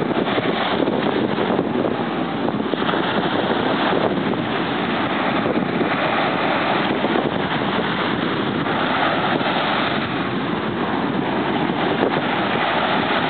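Steady rushing noise of wind buffeting the microphone, mixed with surf on a beach.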